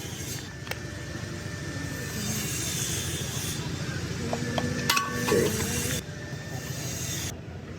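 Motorcycle engine running steadily in a workshop, with a few sharp metallic clicks over it.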